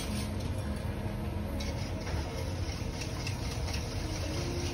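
Steady low mechanical rumble of a commercial kitchen's running equipment, with a faint steady hum over it.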